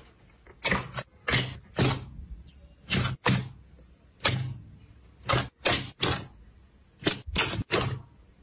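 Thick clear slime being pressed and poked by hand, giving about a dozen sharp sticky pops, often in quick pairs and a fast run of four near the end.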